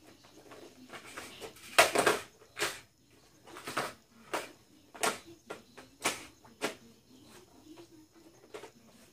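Hard plastic clicks and knocks from a Nerf Rival blaster being handled and reloaded, a part being fitted back into its body. About a dozen separate knocks at uneven spacing, the loudest in the first two-thirds, growing fainter near the end.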